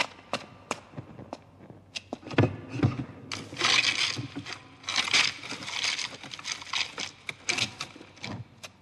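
A few sharp footstep taps, then from about three seconds in, hands rummaging through a small chest of gold trinkets and jewellery. The treasure clatters, clinks and rustles in a dense, uneven run.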